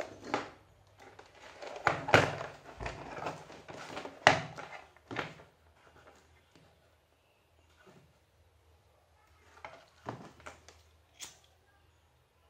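Knocks and clatter of tools and a phone being handled on a workbench, busiest in the first half, with the two loudest knocks about 2 and 4 seconds in and a few sharper clicks near the end.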